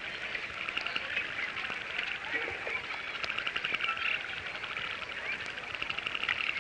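A dense chorus of animal calls: a rapid pulsing trill that swells and fades in waves, with a few short chirps over it.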